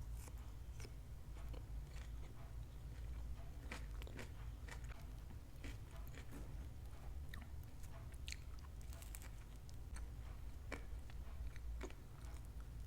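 Close-miked eating of crunchy food: irregular crunches and chewing, over a steady low hum.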